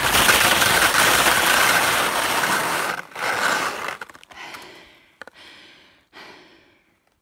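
Skis sliding and scraping over crusty spring snow, a loud rough hiss that stops about four seconds in. Then come heavy breaths, one about every second, as the skier stands catching her breath.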